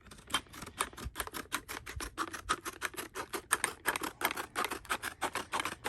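Rapid run of small plastic clicks and snaps, about seven or eight a second, as the plastic packaging of a socket adapter set is worked open by hand.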